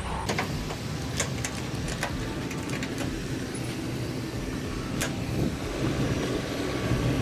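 Steady low rumble of motor vehicles on a street, with a handful of sharp clicks and knocks scattered through it.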